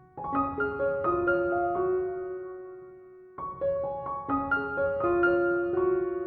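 Background piano music: soft single notes and chords that ring and fade, in two short phrases with a brief lull between them.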